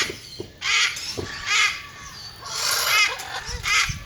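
Parrots squawking loudly, about five short calls roughly a second apart.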